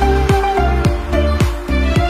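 Background music: a deep kick drum about twice a second, each stroke dropping in pitch, under a sustained melody of held notes.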